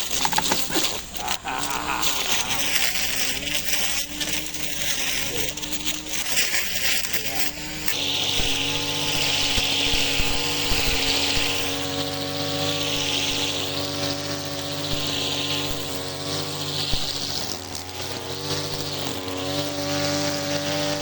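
Electric chainsaw cutting into a log, its motor pitch dipping under load and recovering again and again. About eight seconds in it is cut off abruptly by steady music over a hiss like rain.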